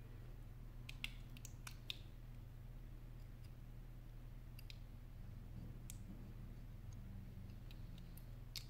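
Faint, scattered small clicks of a precision screwdriver tip and fingers on the metal back plate and tiny screws of an iPhone 7 display assembly, a few close together about a second in and more near the end, over a steady low hum.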